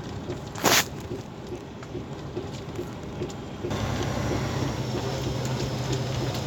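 Loaded truck driving with its engine running steadily and a dull knocking from the running gear, caused by wheels whose nuts have worked loose. One loud, short thump comes just under a second in, and the engine hum grows louder a little past halfway.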